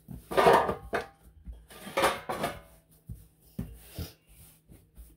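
Kitchen handling noises: two louder clattering bursts, about half a second and two seconds in, then a few lighter knocks.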